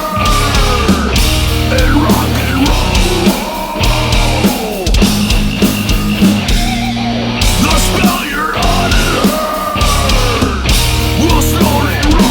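Heavy metal band recording: distorted electric guitar, bass and drums play loud and steady, with a lead line of swooping, bending pitches above.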